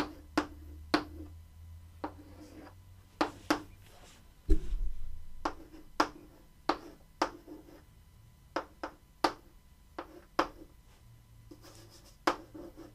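Chalk writing on a blackboard: irregular short, sharp taps and scrapes as an equation is written out, with a dull low thump about four and a half seconds in.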